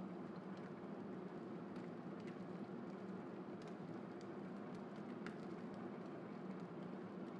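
Cajun-spiced chicken breasts sizzling in hot oil in a nonstick frying pan, a steady sizzle with scattered small pops.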